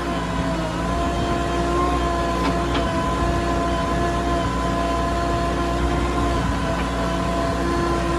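JCB 3DX backhoe loader's diesel engine running steadily under load, a constant low rumble with a steady whine over it, and a couple of faint clicks about three seconds in.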